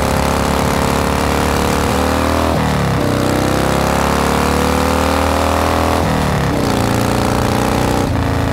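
Motorcycle engine pulling hard through the gears, its pitch climbing steadily, then dropping and climbing again at gear changes about two and a half and six seconds in.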